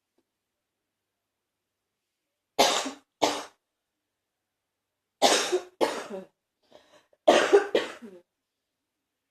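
A person's morning cough: six harsh coughs in three pairs, the first pair starting about two and a half seconds in, with a faint breath before the last pair.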